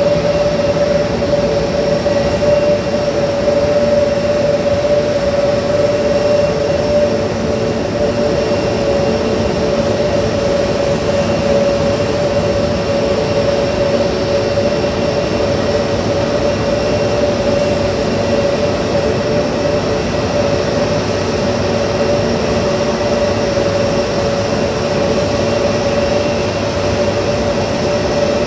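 Jet engines of Frontier Airbus A320-family airliners taxiing close by: a steady loud rumble with a constant droning tone that holds unchanged throughout.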